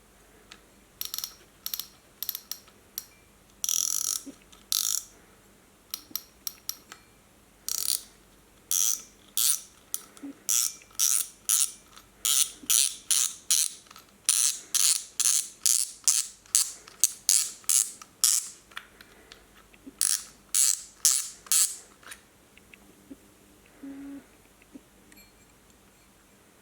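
Shimano Twin Power 4000PG spinning reel making a string of short ratcheting bursts as it is worked during a noise check. The bursts are irregular at first, then settle to about two a second, and stop a few seconds before the end.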